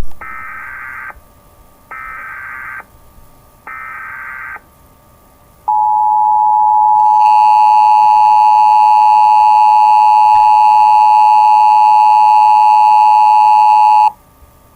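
Emergency Alert System tones: three one-second bursts of buzzing SAME header data, about two seconds apart. Then the loud, steady two-tone attention signal starts about six seconds in, turns harsher a second later, and cuts off abruptly near the end.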